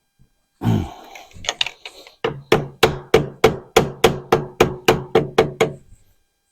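Hammer blows: a few irregular knocks, then a steady run of about a dozen strikes at about four a second, each with a short ring, stopping shortly before the end.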